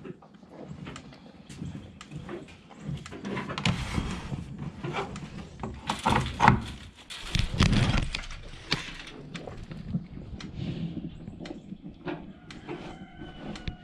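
Knocks, thumps and clatter of cattle moving about in a wooden milking stall, hooves and bodies bumping the boards, loudest about six to eight seconds in. A brief high squeak near the end.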